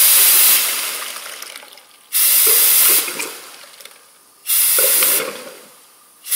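Short hissing blasts of air, about two seconds apart, clearing old 50-50 coolant out of the passages of a Polaris 600 XLT triple's cylinder head. Each blast cuts off sharply and leaves a fading hiss and gurgle of liquid.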